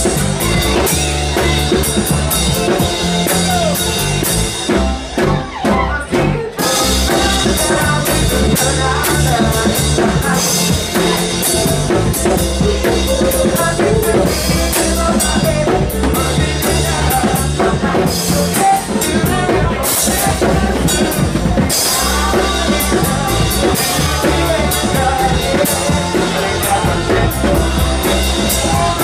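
Live band playing loud, with a singer, drum kit, guitar and keyboard. The band briefly drops back about five seconds in, then comes in full again.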